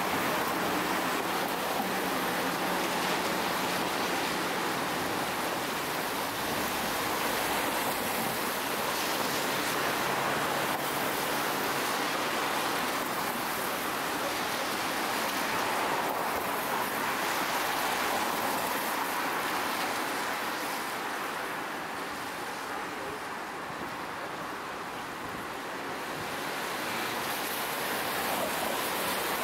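Steady city street traffic noise: a continuous wash of cars and tyres, easing a little about two-thirds of the way through before building again.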